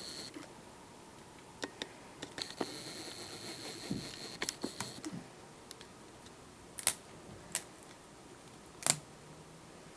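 Small plastic clicks and taps as the laptop screen's display cable connector is worked at and pulled on, with three sharper clicks in the second half.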